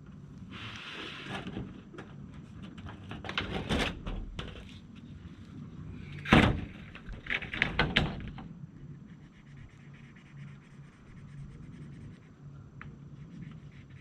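Scattered knocks, then one loud sharp bang about six seconds in followed by a quick cluster of knocks, like pieces of wood or a board being knocked into place.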